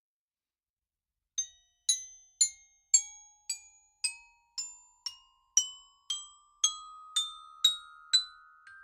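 Xylophone notes struck one at a time, about two a second, starting about a second and a half in and climbing step by step like a rising scale. Each note rings on and overlaps the next.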